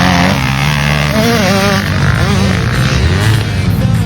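Motocross bike engine running hard, its pitch rising and falling again and again as the throttle opens and closes, over a rushing noise.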